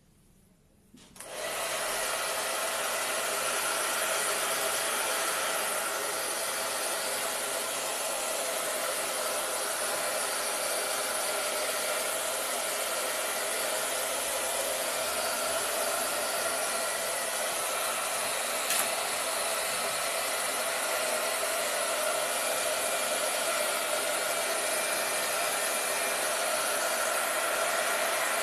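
Hand-held hair dryer switched on about a second in, then blowing steadily with an even hiss and a faint motor hum, speed-drying a thin coat of glitter glue.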